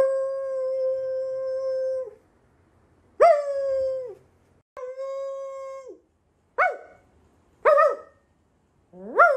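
A beagle howling six times. The first three howls are long and held at one pitch, the first about two seconds, then about a second each. The last three are shorter and slide up and down.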